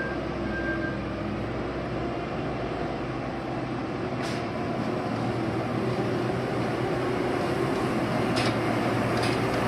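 Heavy diesel road-construction machinery running steadily with a low hum. A high intermittent beeping stops about a second in, and there are a few brief sharp sounds later on.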